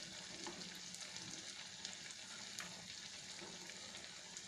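Punugu, small fritters of fermented idli/dosa batter, deep-frying in hot oil in a nonstick pan: a steady sizzle with a few sharp crackles.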